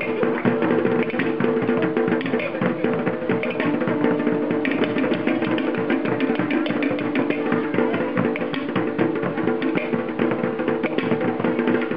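Fast Tahitian drum music: rapid, dense wooden strokes and drums over steady held chord tones.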